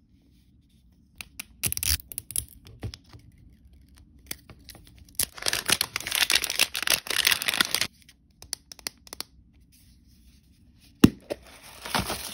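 Printed wrapper layer being peeled and torn off an L.O.L. Surprise toy ball: scattered crinkles and clicks, then a long stretch of tearing and rustling in the middle. Near the end one sharp loud click as the plastic ball's halves are pried apart, followed by more rustling.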